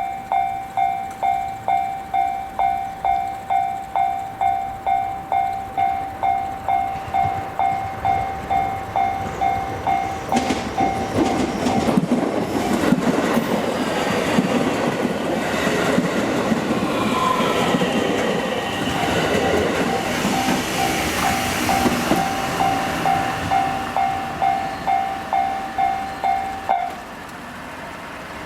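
Level crossing warning bell on the JR Hanwa Line ringing at about two strikes a second. A train runs through the crossing from about ten seconds in, its wheels clattering over the rails and partly drowning the bell. The bell stops shortly before the end as the crossing clears.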